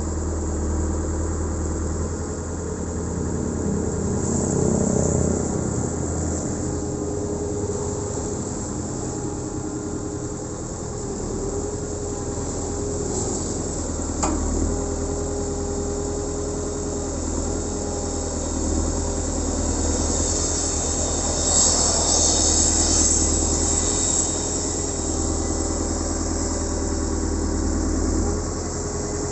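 Terex 970 Elite backhoe loader's diesel engine running, with a steady whining tone over it. It swells louder a few seconds in and again about three quarters of the way through, and there is one sharp clank about halfway.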